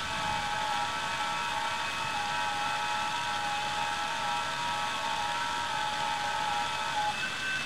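FT8 digital-mode signals on the 40 m amateur band, demodulated by a software-defined radio receiver. Several held tones, each stepping slightly in pitch, sit over steady band hiss. The main tones stop about seven seconds in.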